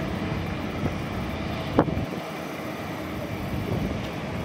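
Steady distant engine rumble with wind on the microphone, and one short sharp knock a little under two seconds in.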